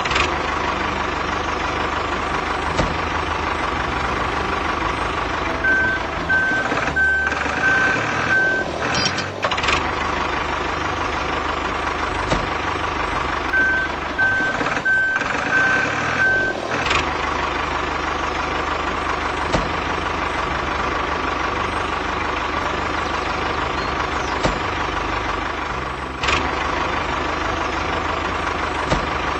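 Truck engine running steadily with a reversing alarm beeping in two runs of a few evenly spaced beeps, about a quarter and half-way through, and occasional sharp knocks.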